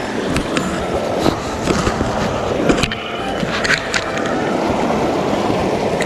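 Mountain stream rushing steadily, with footsteps crunching through snow and brush and a few sharp clicks and snaps.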